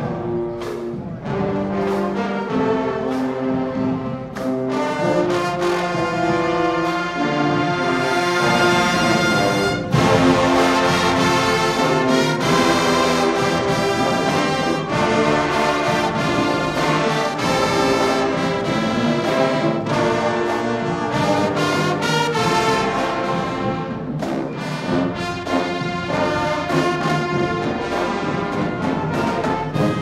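High school marching band playing: the brass section holds sustained chords over steady drum hits. The full band comes in much louder about ten seconds in.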